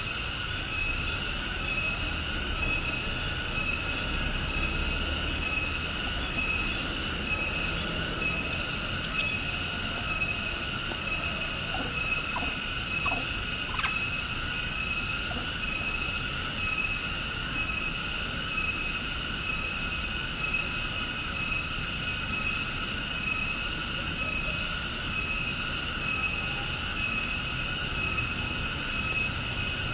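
Cicadas shrilling: a loud, high-pitched buzz that pulses evenly and keeps going without a break, with a few faint clicks near the middle.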